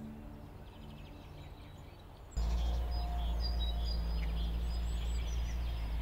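Soft background music with held notes, then, a little over two seconds in, a sudden cut to an outdoor ambience: a loud steady low rumble with small birds chirping over it.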